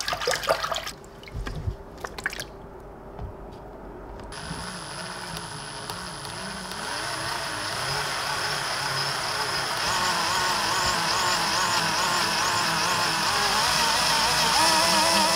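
Water splashing briefly as a hand stirs it, then from about four seconds in a power drill runs steadily, spinning a 3D-printed screw pump standing in a tub of water. The drill's sound wavers slightly and grows gradually louder.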